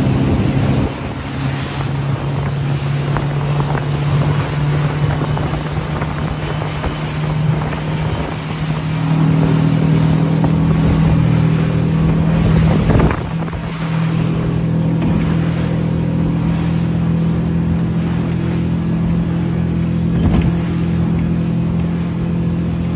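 A motorboat's engine running hard at speed, a steady drone with wind and water rushing over it. The engine note and the level step up about nine seconds in. A single hard thump comes a little past halfway.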